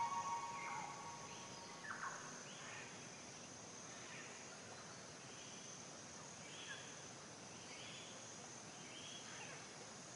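Closing music fades out within the first second, leaving faint background: a steady high hiss with soft, short chirps recurring about once a second.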